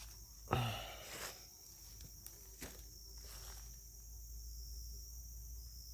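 A steady, high-pitched evening insect chorus. About half a second in there is a brief rustling thump, the loudest sound here, followed by a few faint clicks.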